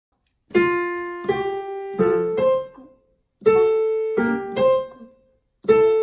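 Digital piano played by a young child: a simple melody, mostly one note at a time, in short phrases of three or four notes. Each note rings out and fades, with brief pauses between phrases.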